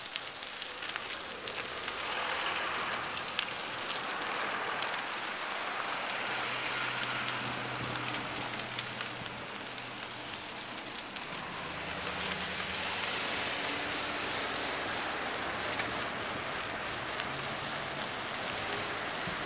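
Steady rushing noise of a bicycle riding along a wet, slushy street beside traffic. A low engine hum from cars close by comes through for several seconds in the middle.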